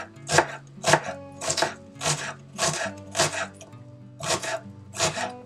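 Kitchen knife chopping onion on a wooden cutting board: crisp knife strikes on the board, roughly two a second. Soft background music plays underneath.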